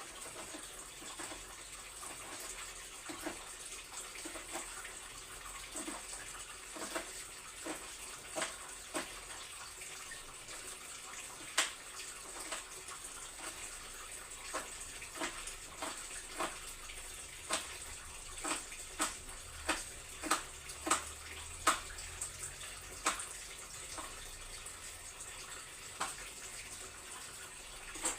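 Water running from a kitchen tap into a sink, with many light knocks and clinks from things being handled under it, most frequent in the second half.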